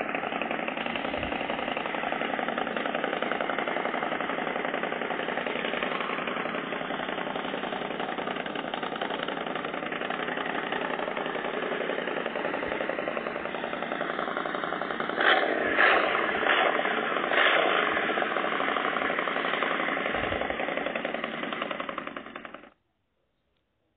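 Recorded engine sound of a Victory Octane motorcycle's V-twin running steadily, with a few louder revs about 15 to 18 seconds in, then cutting off abruptly near the end. It is played back from a motorcycle-sounds app, so the sound is thin and lacks its high end.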